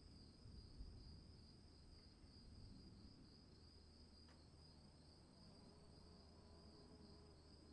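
Faint, steady chirring of crickets, a high pulsing trill, over a faint low rumble.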